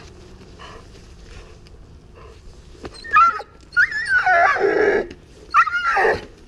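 Puppy whining and yipping in three high-pitched, wavering outbursts, the longest about a second, while it pulls toward a tug toy.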